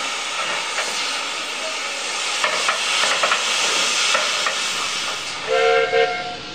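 Gas cutting torch hissing steadily as it cuts through the steel of a scrapped steam locomotive's boiler, with sharp crackles and pops from about two and a half seconds in. Near the end a multi-note steam locomotive whistle gives two short toots.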